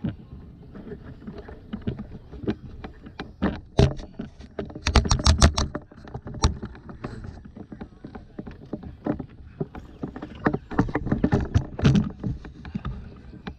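Irregular knocking, clicking and rattling of gear being handled. A quick rattling run of knocks comes about five seconds in, and another busy run comes near the end.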